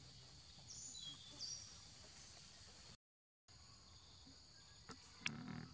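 Faint tropical forest ambience: a steady high insect hum with a few short bird chirps about a second in. The sound drops out completely for half a second about three seconds in, and a sharp click with a brief low thump comes near the end.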